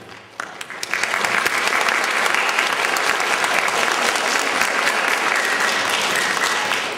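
Audience applauding: a few scattered claps at first, building within about a second into steady applause.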